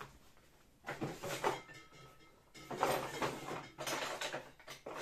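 Rustling and scraping handling noises in three bouts, each about a second long.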